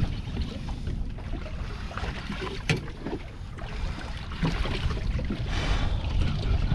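Wind and water noise aboard a boat at sea: a steady low rumble with small scattered knocks, and one sharp click a little under three seconds in.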